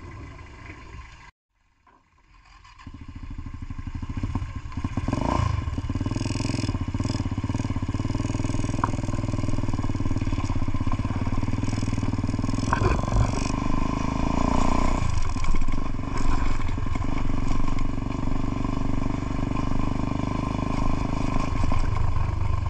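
Motorcycle engine running on the move. After a brief drop-out a little over a second in, it builds up over a couple of seconds and then runs steadily, with a few rises and falls in pitch.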